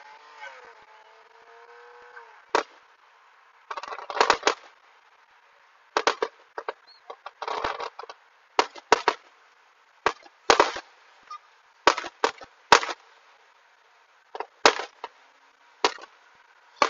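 Aerial fireworks bursting overhead in an irregular string of sharp bangs, about fifteen reports. Some come in quick clusters with crackling, around four seconds in and again near the eight-second mark. A steady pitched tone sounds under the first two seconds.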